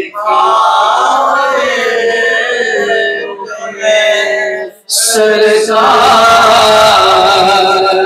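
A man recites a naat, an Urdu devotional poem, in a solo singing voice with long, ornamented held notes. The line breaks off briefly just before five seconds in, and a new sung phrase begins.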